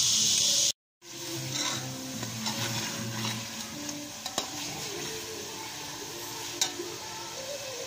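Chicken cooking in hot oily masala sizzles in an aluminium pot while a steel ladle stirs it, now and then scraping and clicking against the pot. A louder hiss at the very start breaks off into a moment of silence just under a second in, and the sizzling and stirring then carry on steadily.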